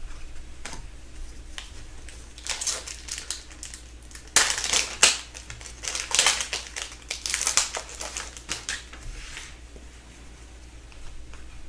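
Foil wrapper of a 2015/16 Upper Deck hockey card pack crinkling and tearing as it is opened by hand, in irregular crackly bursts, loudest about four to five seconds in.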